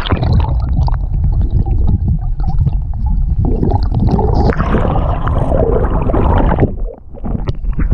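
River water rushing and gurgling over stones, heard muffled with the camera's microphone held underwater. It is a dense, low rumble with scattered knocks and bumps, dropping away briefly near the end.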